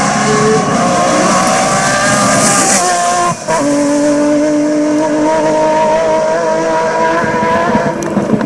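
Lancia Stratos's 2.4-litre Ferrari Dino V6 running hard, with a brief drop in sound about three seconds in, as at a gear change, then holding a steady note.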